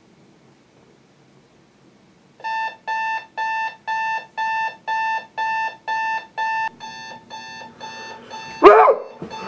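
Emerson clock radio's alarm beeping about twice a second, starting a couple of seconds in and turning softer in the last few seconds. Near the end a sudden, loud voice cuts in over it.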